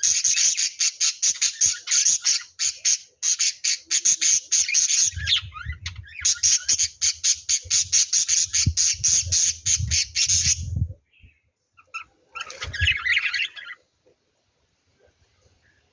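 Lovebirds giving a rapid run of shrill squawking chirps, several a second, that breaks off about two thirds of the way in, followed by one short burst of calls and then quiet. A low rumble sits under the middle of the run.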